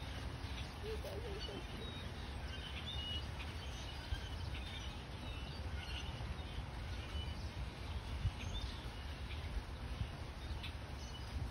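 Outdoor background ambience: a steady low rumble with scattered short, high chirps, most of them in the first half.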